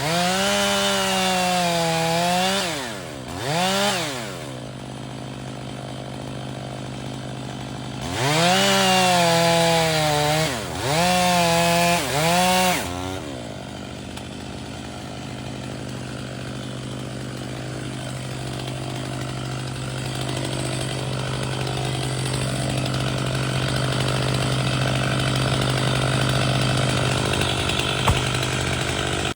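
Chainsaw cutting at full throttle, its pitch dipping and recovering as the chain bogs in the wood. It drops to idle at about three seconds, cuts again from about eight to thirteen seconds, then settles back to idling.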